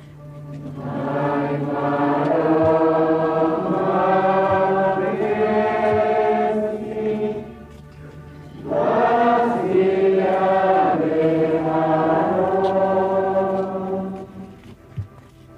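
A group of voices singing a slow, chant-like hymn in two long phrases, with a short break about eight seconds in; it is the singing during the distribution of communion at Mass.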